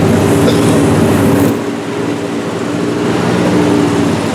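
Off-road tow truck engine running hard under load in sand, pulling up a hill with help; the noise eases about one and a half seconds in while the engine keeps running.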